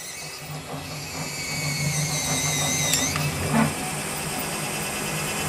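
Small electric motor and gearbox of an RC jet's 3D-printed main landing gear retract extending the leg, whirring steadily with a click about three seconds in. The extension goes fairly smoothly.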